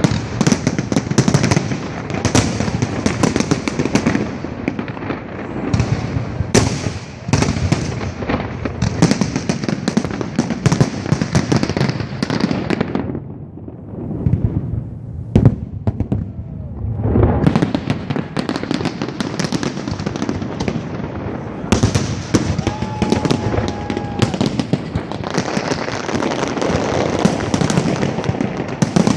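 Fireworks display with dense, rapid bangs and crackling. It thins out for a few seconds in the middle, with a single sharp bang, then builds up again.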